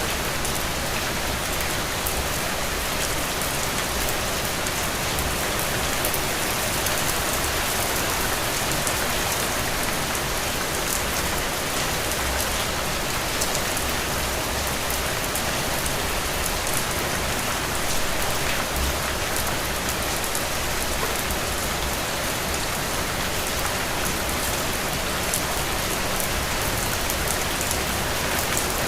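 Steady rainfall, an even hiss with fine patter of drops striking a surface.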